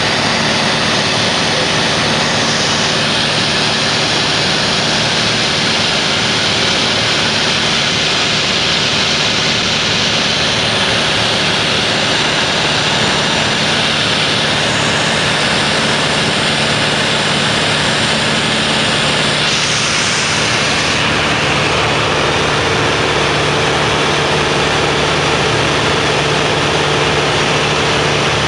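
Single-engine propeller light aircraft heard from inside the cabin: a steady, loud engine and propeller drone with rushing airflow noise. The engine note shifts slightly about 20 seconds in.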